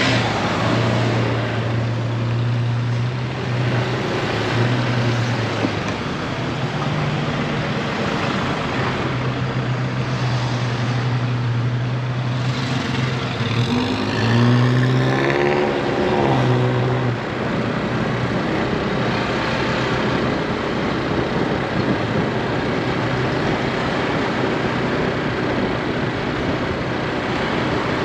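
A motorbike riding in town traffic: its engine runs at a steady low note under wind and road noise. About halfway through, a wavering engine sound rises and falls. After that the low engine note drops away, leaving mostly wind and road noise.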